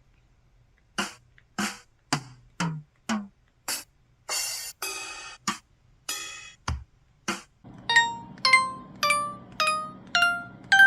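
Motorola ZN50 ROKR mobile phone system sound effects: a string of short drum-like hits of varied pitch, then from about three-quarters of the way in a run of chime notes climbing step by step in pitch, a little under two a second.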